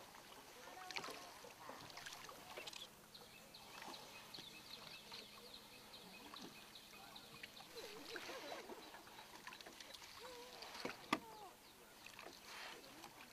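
Wooden sampan being rowed on calm water: quiet lapping and soft oar strokes, with small scattered clicks and a single sharp knock near the end.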